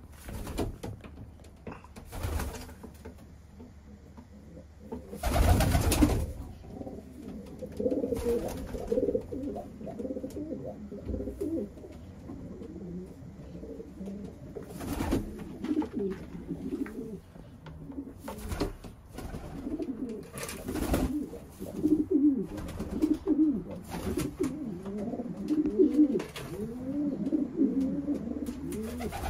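Homing pigeons cooing, many overlapping rising-and-falling coos that grow busier in the second half. Several sudden noises break in, the loudest a burst of about a second some five seconds in.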